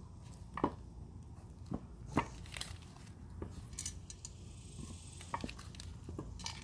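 Loose bolts rattling inside a BMW 335i E93's Mfactory limited-slip differential as the removed unit is shaken by hand: a dozen or so sharp, irregular metallic clinks. The rattle is the loose-internal-bolt fault that Mfactory's voluntary recall covers.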